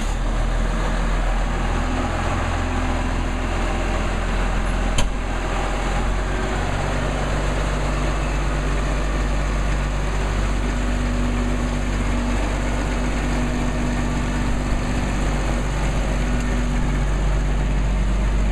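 Case IH Magnum tractor's six-cylinder diesel engine running steadily just after starting, with one sharp click about five seconds in.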